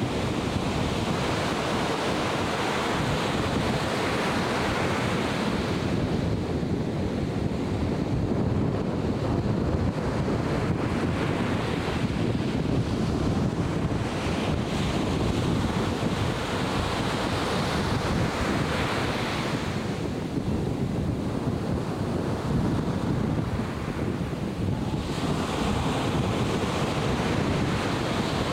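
Atlantic Ocean surf breaking and washing in, swelling and easing every several seconds, with wind blowing on the microphone.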